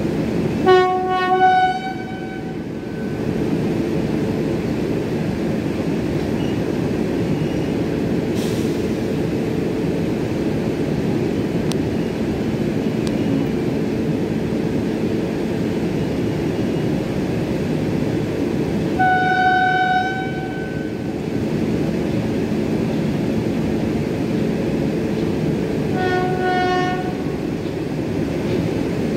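Passenger coaches of a departing express rolling past with a steady rumble, while an electric locomotive's horn sounds three times: a blast about a second in, another about two-thirds of the way through, and a weaker one a few seconds before the end.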